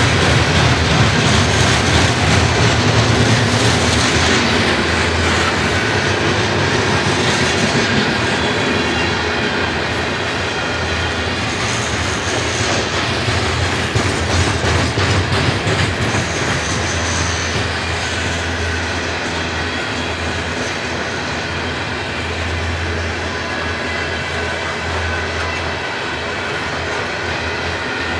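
Freight train of covered grain hopper cars rolling past, with a steady rumble and the clickety-clack of steel wheels over rail joints. Brief high wheel squeals come twice, about midway.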